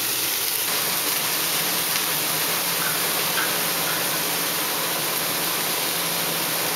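Vegetables frying in oil in a hot wok: a steady, even sizzling hiss, with a faint low hum beneath it.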